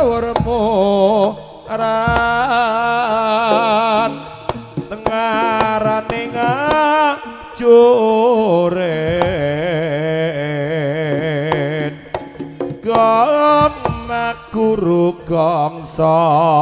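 Jaranan ensemble music: a lead melody with a strong wavering vibrato, played in held phrases broken by short pauses, over kendang drumming and a steady low ringing tone.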